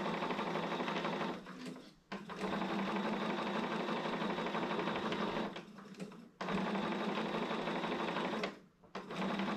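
Electric sewing machine stitching through layered quilt fabric. It runs steadily, stops briefly three times, about a second and a half in, about six seconds in and near the end, and starts again each time.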